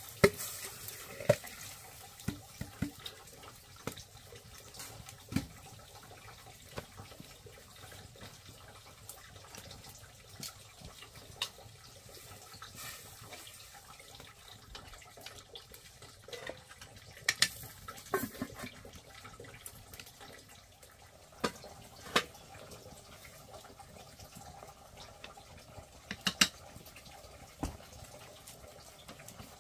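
Water splashing and trickling, with sharp clicks and knocks every few seconds.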